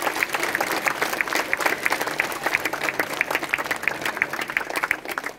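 A large outdoor crowd applauding, dense and steady clapping that dies away near the end.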